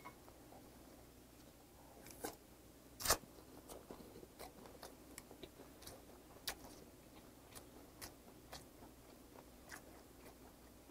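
Close-miked chewing of a mouthful of rice and soy-marinated peeled shrimp: soft, scattered wet mouth clicks and smacks, with one louder click about three seconds in.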